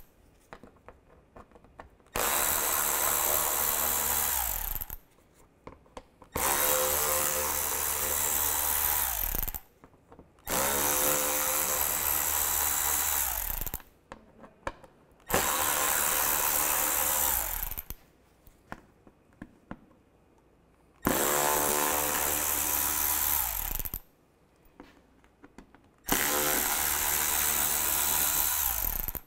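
Red cordless ratchet with a T20 Torx socket backing out the screws of the under-engine splash shield: six separate motor runs of about three seconds each, with short pauses between screws. Each run starts with a rising whine as the motor spins up.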